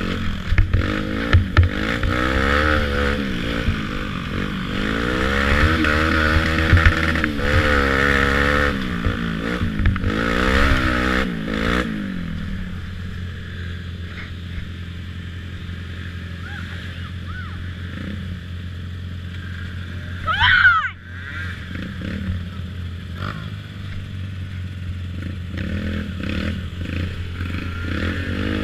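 Youth ATV engine revving up and down with the throttle over rough trail for about twelve seconds, then settling to a steady idle. About twenty seconds in, a short, loud rev sharply rises and falls in pitch.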